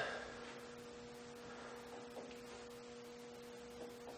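Milling machine spindle running with a steady low hum, while a carbide end mill is touched against the barrel lug to check the zero. There is a sharp click at the start and a few faint light taps later.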